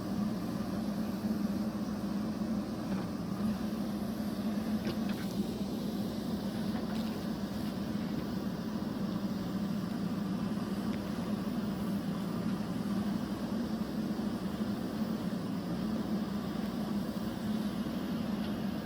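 JCB backhoe loader's diesel engine running steadily, with a few faint clicks from about three to seven seconds in.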